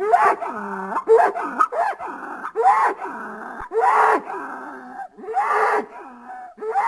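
Designed creature vocalizations for the extinct Chalicotherium: a string of short pitched animal-like calls, each bending in pitch, about one a second.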